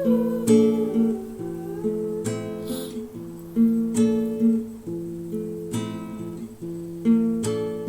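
Background music: acoustic guitar strumming chords at an easy, even pace.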